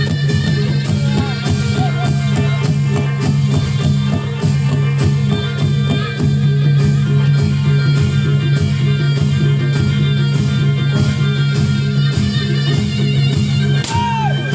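Loud live music accompanying a reog/jaranan dance: a steady run of drum strokes over a sustained low drone, with a few sliding high notes near the end.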